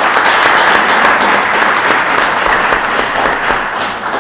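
Audience applauding: a steady round of hand clapping.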